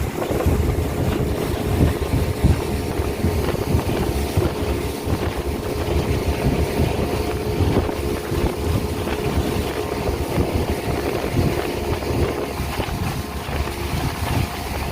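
Speedboat's engine running steadily at speed, with wind buffeting the microphone and a dense rumble of the hull on the water.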